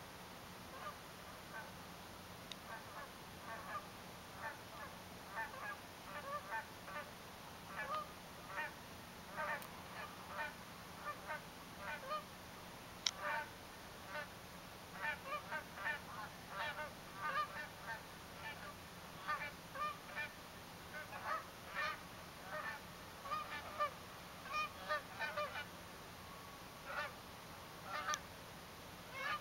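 A flock of Canada geese honking: many short calls in quick succession, a few a second, starting about a second in and growing busier from about halfway.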